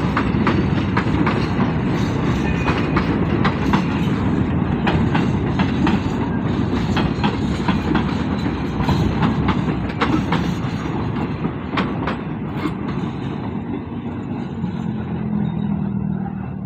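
Freight train of loaded container flatcars rolling past: a steady rumble of steel wheels on rail with clickety-clack over the rail joints. The sound eases off near the end as the last car goes by.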